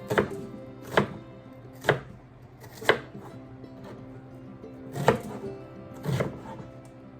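Kitchen knife chopping onions on a cutting board in slow single strokes, about one a second, six in all with a pause of about two seconds midway.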